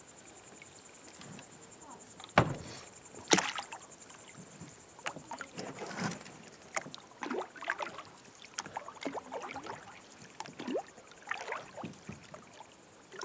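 Oars of an inflatable rowing boat knocking and splashing in irregular strokes, two sharp knocks about two and a half and three and a half seconds in being the loudest. A faint high insect chirping lies underneath.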